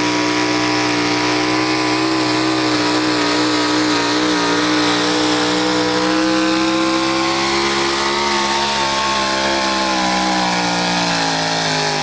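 Pro stock 4x4 pulling truck's engine held at full throttle under load during a pull: one loud, steady high-revving note that wavers slightly and climbs a little in pitch near the end.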